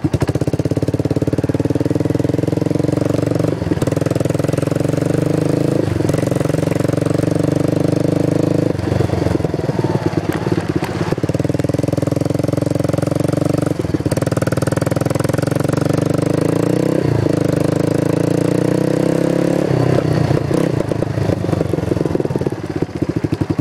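Kawasaki 300cc four-wheeler's single-cylinder engine running loud and steady through an aftermarket DG muffler, its note dipping briefly every few seconds.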